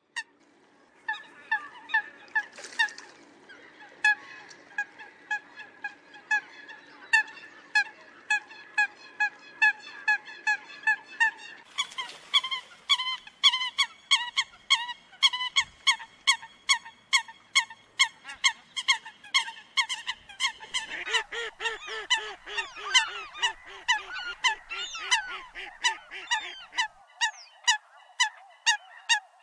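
Eurasian coots calling: a long series of short, sharp calls repeated at an even pace. Near the middle it changes abruptly to a quicker run of about two calls a second, with more calls overlapping in the last third.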